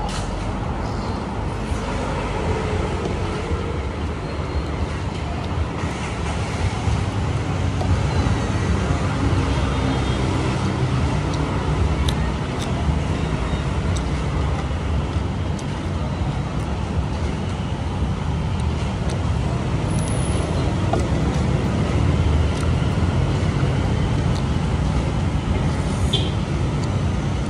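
Steady rumbling street traffic noise, with passing motor vehicles blending into a continuous background.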